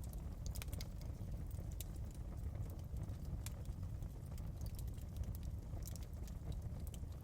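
Wood fire burning in a fireplace: a steady low rumble of flames with irregular small crackles and pops throughout.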